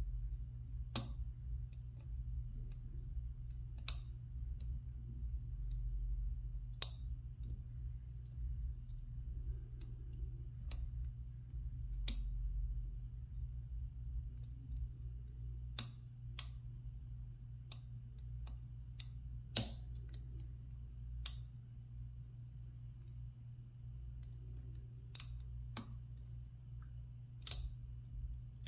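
Scattered, irregular sharp metallic clicks of a lock pick and tension tool working the pins inside a Corbin steel padlock during single-pin picking, over a low steady hum.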